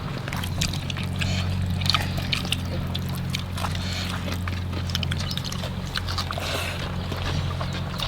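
A steady low mechanical hum runs throughout, with small scattered clicks and rustles of people eating by hand from leaf plates.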